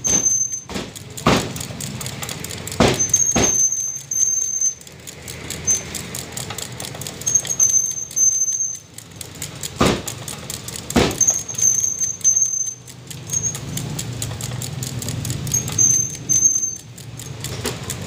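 Heavy meat cleaver chopping a roast chicken on a wooden chopping block, making sharp single chops: about four in the first few seconds, then two more a little past the middle. A steady low rumble and an on-and-off high thin squeal run underneath.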